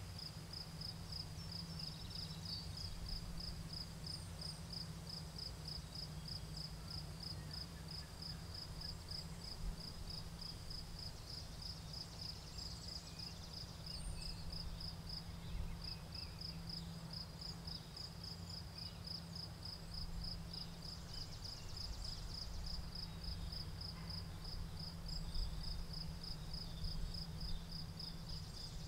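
Crickets chirping steadily, about four high chirps a second, pausing briefly about halfway, over a low steady background rumble.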